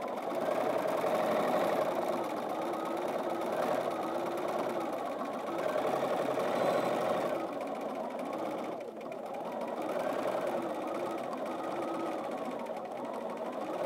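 Bernina 550 sewing machine stitching continuously under its BSR stitch regulator during free-motion quilting. Its motor pitch rises and falls as it speeds up and slows to follow how fast the quilt is moved, easing off briefly a little past the middle.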